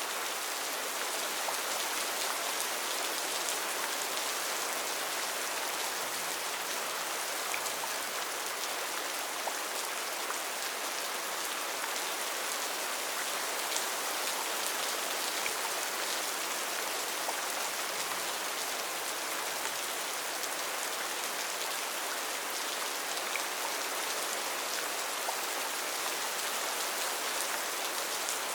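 Steady rain falling in a forest: an even hiss of rainfall with scattered individual drops ticking on surfaces.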